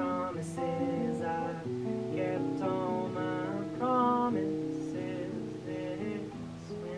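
Male voice singing over acoustic guitar; the singing drops away about four and a half seconds in and the guitar plays on, gradually getting quieter.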